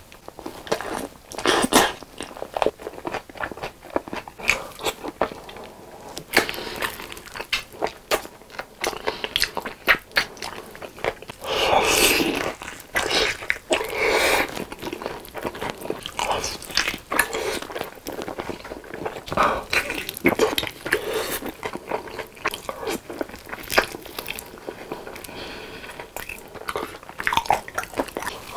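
Close-up eating sounds of BBQ-sauce-coated fried chicken drumsticks: bites into the coating and chewing, an irregular run of short snaps and mouth clicks, with a longer, louder stretch about twelve seconds in.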